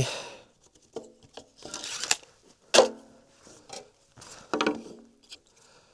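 Wooden boards knocking and clattering against each other a few times as lumber is handled, the loudest knock near the middle.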